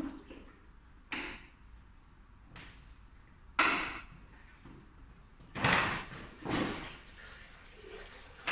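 A string of sharp metallic clunks and knocks as the wheeled cart frame of a Graco airless paint sprayer is handled and tilted back onto its tilt-back bracket, about six knocks a second or two apart, the loudest about three and a half seconds in. The sprayer's pump is not running.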